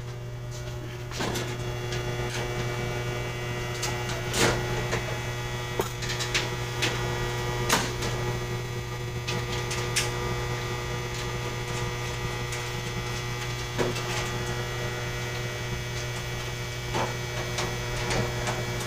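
Steady electrical mains hum from equipment in an electrical room, with occasional sharp clicks and knocks from hands and tools working at a metal electrical panel.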